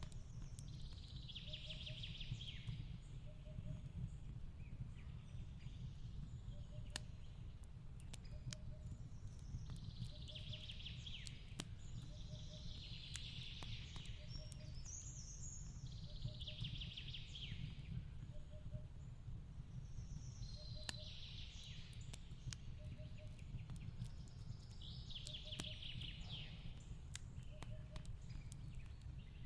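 Fireplace crackling with scattered sharp pops over a steady low rumble, while a bird sings short trilling phrases every few seconds. A faint, low double note repeats about every second and a half underneath.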